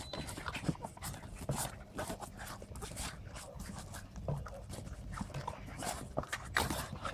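A small pack of Boston terriers playing, jumping at a hanging ball: irregular dog breathing and scuffling paws on dirt, with scattered short clicks and knocks.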